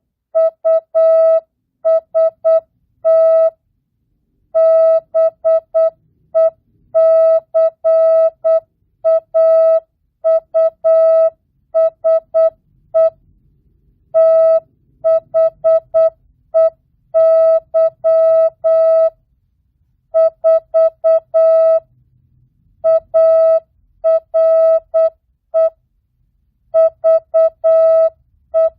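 Morse code (CW) practice tone: a single beep of about 650 Hz keyed on and off in dots and dashes at 8 words per minute, non-Farnsworth, so the characters themselves are sent slowly. It spells out mixed words, numbers and punctuation, with short gaps between letters and longer pauses between words.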